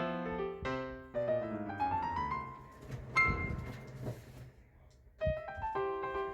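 Background piano music playing a melody, with a brief sharp knock about three seconds in.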